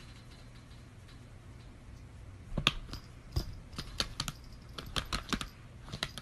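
Typing on a laptop keyboard: irregular key clicks, several a second, starting about two and a half seconds in over a faint low hum.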